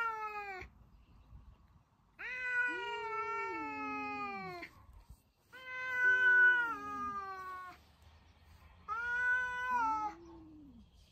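Domestic cats in a territorial standoff, yowling: long, drawn-out, wavering yowls that sag in pitch as they end. One trails off just after the start, and three more follow with short quiet gaps, the last one shorter.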